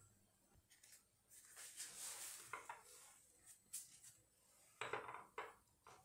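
Faint kitchen handling sounds as a flour tortilla is brushed with flour paste and folded into a filled triangle on a wooden cutting board. A soft rustle comes about two seconds in, and a few light taps and clicks follow through the second half.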